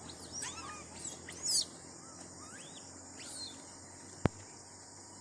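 Birds chirping in short, arching calls over a steady high drone of insects, with one sharp click about four seconds in.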